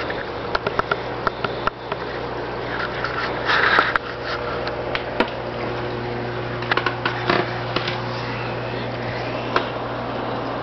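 Steady low hum of a running aquarium pump under an even hiss, with scattered short clicks and a brief rustle about four seconds in.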